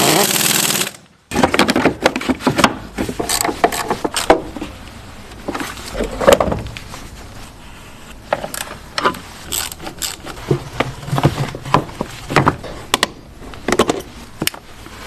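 Hand tools working on a car's transmission mount: irregular metallic clicks and knocks, as of a ratchet wrench and tools against metal, while the new mount is bolted in. It opens with about a second of loud rushing noise.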